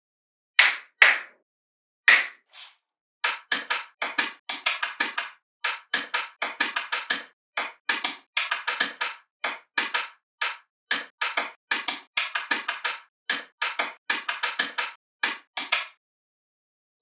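Small magnetic balls clicking and snapping together in sharp clicks: a few separate clicks in the first two seconds, then a busy run of quick clicks that stops about a second before the end.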